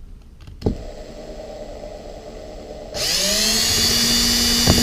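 Electric drill with a 1/8-inch bit drilling the pilot holes for the seat knuckle plate. A click, then a low hum, then about three seconds in the motor spins up with a rising whine and holds steady at full speed.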